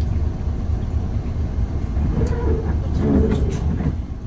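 Coach diesel engine idling with a steady low rumble, heard from inside the bus cabin.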